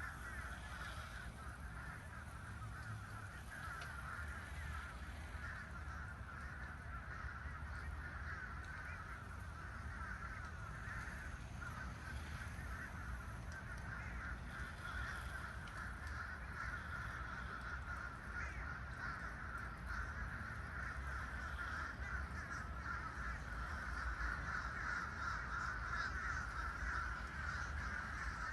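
A large flock of birds calling all at once, a continuous dense chorus of many overlapping calls that grows a little louder near the end.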